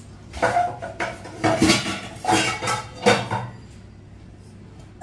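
Kitchen bowls being handled, knocking and clattering about five times over some three seconds as a bowl of raw chicken pieces is moved.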